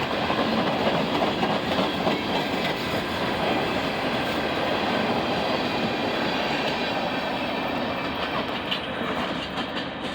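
Freight cars of a grain and ballast train rolling past, with a steady rumble and the clatter of wheels over the rail joints, easing off a little near the end.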